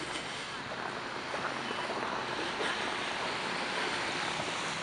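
Steady outdoor city street noise, a constant even rush with no distinct events.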